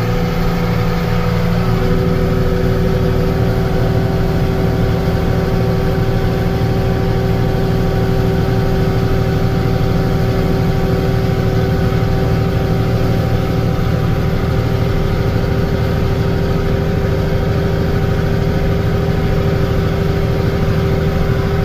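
Farm tractor's diesel engine running at a steady speed while pulling a planter, a low drone with a constant whine over it.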